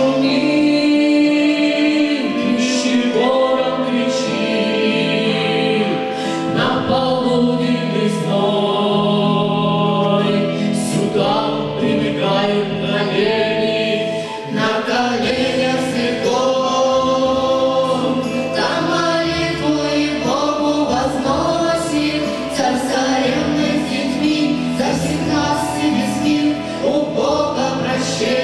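A small mixed group of voices, a woman, a girl, a boy and a man, singing a Russian Orthodox spiritual song together in parts.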